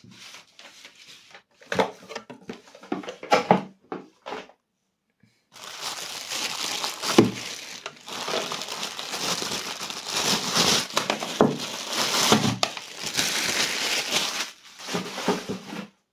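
Plastic packaging crinkling and rustling as small parts are handled and unwrapped. Scattered handling knocks come first, then continuous crinkling from about five seconds in until near the end.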